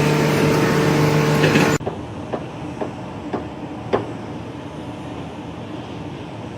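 A loud steady machine hum that cuts off abruptly, followed by quieter background noise with about five sharp knocks spread over a couple of seconds.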